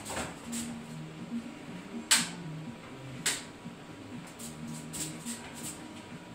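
A few sharp clicks and taps from handling the cables and parts of a Cube Stereo Hybrid e-mountain bike hung in a work stand, the two loudest about two and three seconds in, over a faint low hum.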